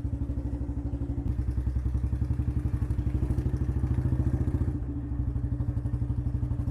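Royal Enfield Bullet's single-cylinder engine running through a freshly fitted aftermarket C-bend exhaust pipe, a steady rapid train of exhaust beats. It picks up a little about a second in and eases back near five seconds. The louder, freer-flowing note comes from the C-bend replacing the stock bend pipe.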